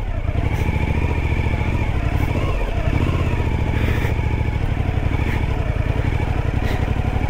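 Motorcycle engine running as the bike rides slowly through soft sand, with small rises and falls in revs.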